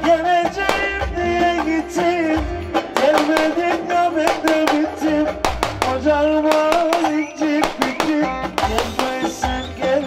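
Live Ankara oyun havası folk dance music from a wedding band: a quick melody over a steady drum beat.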